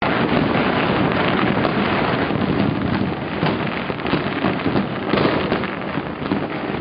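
Massed fireworks and firecrackers going off all around: a dense, continuous crackling and popping, with a few louder bangs standing out.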